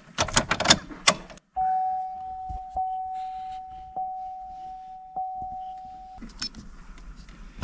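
Ignition key jangling and clicking as it is turned in the ignition of a 2008 GMC Envoy, then a steady high electronic tone held for about four and a half seconds with a faint click a little more than once a second.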